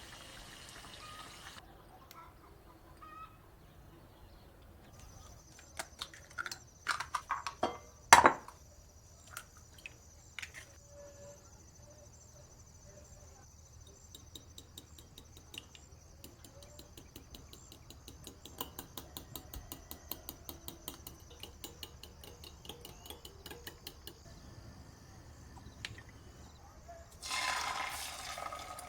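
Kitchen utensils on dishes: a few sharp knocks, the loudest about eight seconds in, then a long run of quick, even clinks like a whisk or fork beating in a bowl. A faint steady high whine runs underneath from about five seconds in, and a short rushing noise comes near the end.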